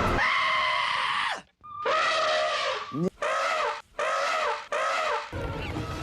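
The Hollywoodedge 'Elephant Trumpeting' stock sound effect (PEO24801): an elephant trumpets about five times in quick succession, each call bending down in pitch at its end. The first call is the longest. Near the end a noisier, lower sound takes over.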